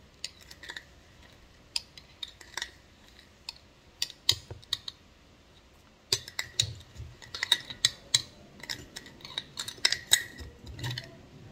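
A spoon clinking and scraping against a glass jar while scooping out sugar, in scattered sharp taps that come thicker in the second half.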